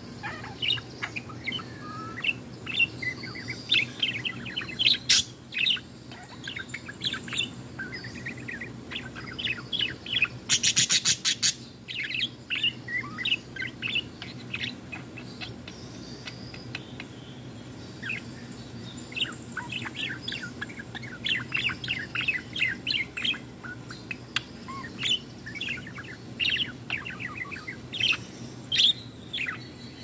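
Female sky-blue budgerigar warbling: a continuous run of rapid chirps, clicks and short chattering notes, with a loud burst of fast clicks about a third of the way in and a sparser stretch just after the middle. A faint steady low hum lies underneath.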